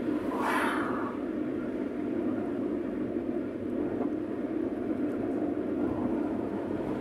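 Steady road and engine noise heard inside a moving car. About half a second in, a brief whoosh swells and falls away as an oncoming car passes.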